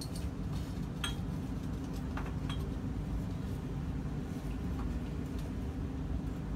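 A few light clinks of glassware being handled, around one, two and a half and five seconds in, over a steady low rumble.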